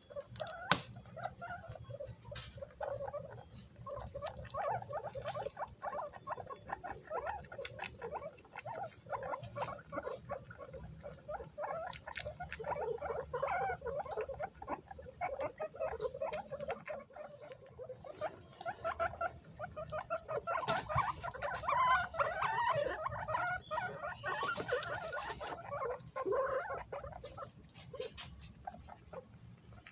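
A group of guinea pigs squeaking and chattering in many short, overlapping calls, with scattered scuffling clicks as they jostle over banana pieces. The calls grow busier and louder a little past the middle.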